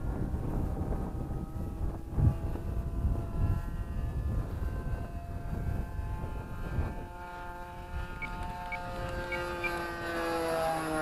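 Thunder Tiger .61 nitro glow engine, fitted with a quiet pipe, running at speed in an RC Race Cat model plane in flight. Its engine note drifts in pitch as the plane moves around, then sweeps downward near the end as it passes. A low rumble sits underneath, strongest in the first half.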